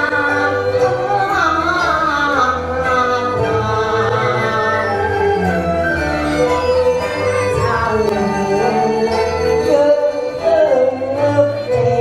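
A woman singing a slow, gliding melody into a microphone over instrumental backing with a steady bass.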